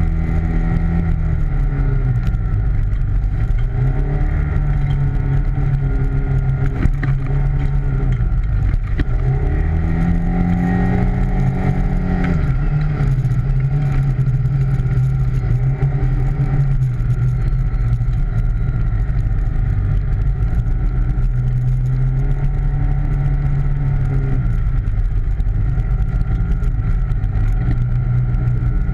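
ATV engine running steadily, its pitch rising and falling several times as the throttle is opened and eased.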